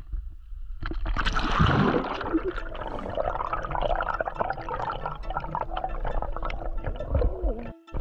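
Water sloshing and gurgling as the microphone goes under the spring's surface about a second in. Then the muffled crackle and bubbling of water heard from underwater, with a faint steady hum.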